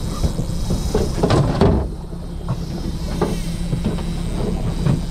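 A boat engine running with a steady low hum, with a few knocks and clatters of gear on the boat about a second and a half in and a few lighter knocks later.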